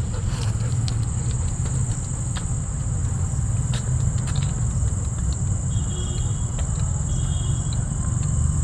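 Night insects trilling steadily in one high, continuous band, over a steady low rumble, with scattered light clicks and two short high chirps about six and seven seconds in.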